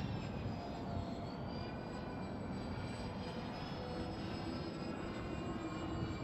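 Electric motors and propellers of a four-engine RC model B-24 Liberator in flight: several high whines that drift slowly up and down in pitch, over a steady low rush.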